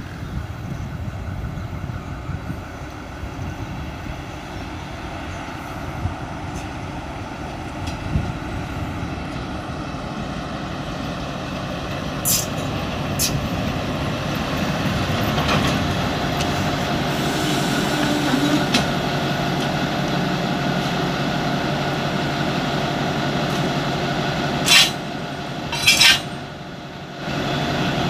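Alsthom ALS diesel-electric locomotive with a Caterpillar engine running while shunting, its engine drone growing steadily louder as it closes in. Near the end come two short, loud hisses of compressed air about a second apart, with two lighter hisses about halfway through.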